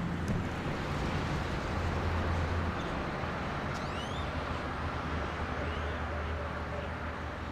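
Steady vehicle running noise: a low drone of engine and road under a wide hiss, with a few brief high chirps about halfway through.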